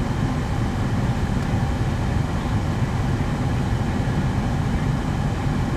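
Steady low rumble inside a parked car in a storm, even in level throughout, with no distinct events.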